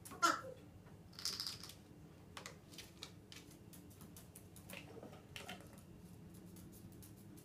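A pet parrot gives one short call that falls in pitch, then a brief harsh rasp about a second in, followed by a few light clicks and taps spread over the next several seconds.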